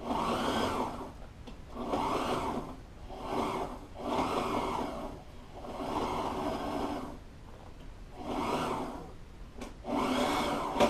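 Walking-foot upholstery sewing machine stitching a double seam in vinyl, run in short stop-start bursts of about a second each, about seven runs with brief pauses between them.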